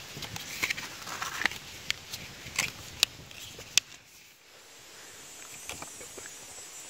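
Wood fire crackling, with irregular sharp pops over the first four seconds or so, then quieter.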